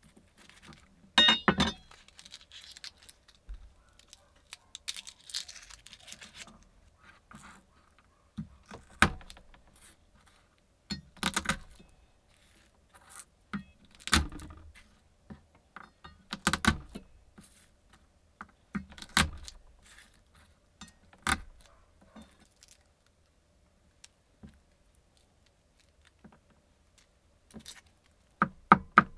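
Garlic cloves peeled by hand on a wooden cutting board: dry papery skins rustling, with sharp knocks on the board every couple of seconds. Near the end, rapid even knife chopping on the board starts, about five strokes a second.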